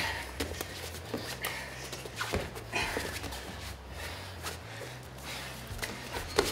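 Two fighters straining in a standing neck clinch: short, sharp breaths and snorts through the nose, with bare feet scuffing on the ring canvas.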